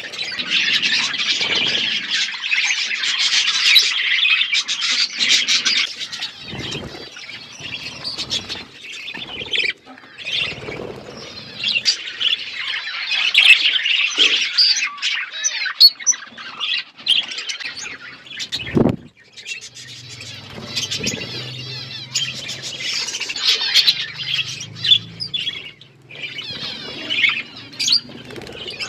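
A flock of budgerigars chattering and warbling continuously, with scattered small clicks and one sharper knock about two-thirds of the way through.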